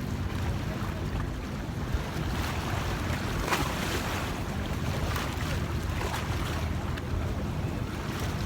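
Sea waves washing and splashing against rocks, with wind rumbling on the microphone.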